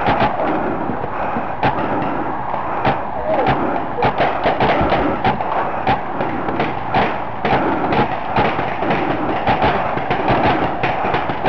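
Paintball markers firing all around in quick, irregular strings of sharp pops, with thuds among them, over a steady noisy hiss.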